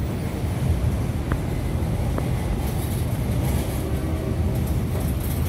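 Freight train gondola cars rolling over a steel girder railroad overpass: a steady, heavy low rumble, with two sharp clicks about one and two seconds in.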